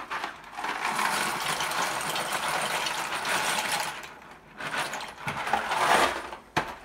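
Dry penne rigate pasta pouring out of a cardboard box into a saucepan, a steady rattle for about three seconds, then two shorter rattles as the last pieces are shaken out and a short tap near the end.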